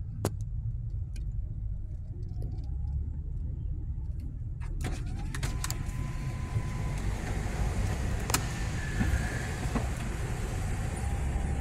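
Car moving slowly in city traffic, heard from inside: a steady low rumble of engine and road, with a few sharp clicks. A louder hiss comes in about halfway through.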